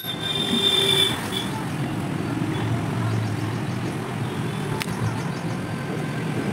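Motor vehicle engine running nearby, a steady low rumble, with a brief high-pitched squeal in the first second and a single sharp click about five seconds in.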